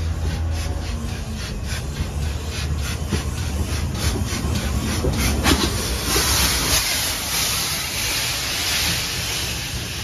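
GWR Manor class 4-6-0 steam locomotive No. 7828 moving slowly past at close range, with a steady low rumble and an even beat about two to three times a second. A single thump comes about five and a half seconds in, then a loud steam hiss starts at about six seconds as the engine draws alongside, easing off near the end.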